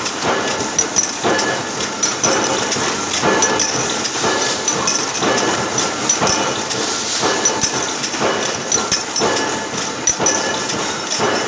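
Automatic BST trimmer machine running as it trims aluminum aerosol cans: a steady mechanical whir with a burst of metallic clanking about once a second, one for each machine cycle.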